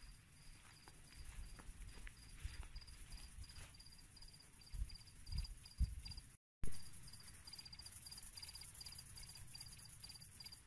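A cricket chirping steadily outdoors at night, a quick even run of short high-pitched chirps. A few dull low thumps come around the middle, and the sound cuts out completely for a moment just after.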